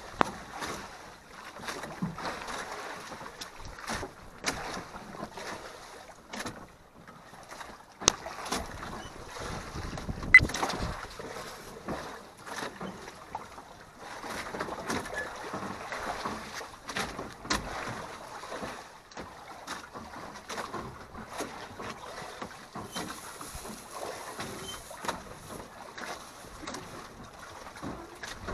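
Scattered knocks, clatter and rustling of food preparation on a small wooden boat, over a steady background of wind and water. The loudest is a sharp knock about ten seconds in.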